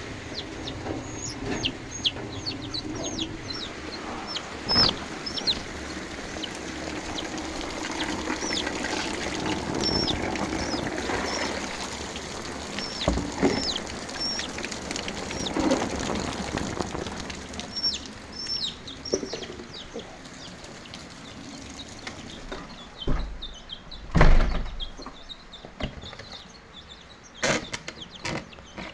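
A baby chick peeping over and over, short high calls that slide down in pitch, over a steady hiss. A few loud knocks come near the end.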